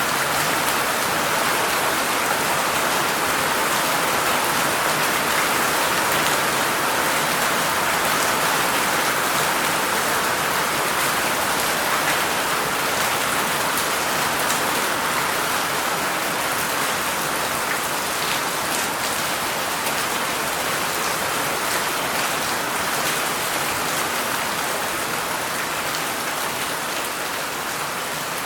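Heavy rain falling: a steady, dense hiss with many fine drop ticks, growing slightly quieter near the end.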